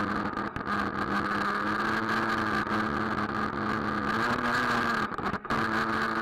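Traxxas Nitro Rustler's small two-stroke nitro engine running at a fairly steady speed, heard from a camera mounted on the truck. Its pitch rises slightly about four seconds in, and the sound cuts out briefly twice about five seconds in.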